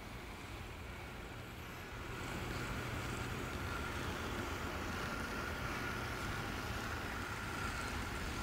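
Wind rumbling on the microphone over a steady distant mechanical drone, with a faint high whine that comes up about two seconds in and holds steady.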